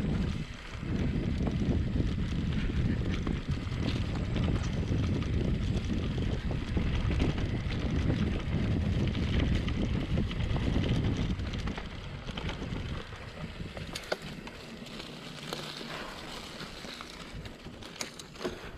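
Mountain bike ride: wind buffeting the microphone and tyres running over the trail, easing off about twelve seconds in, with a few sharp clicks and rattles near the end.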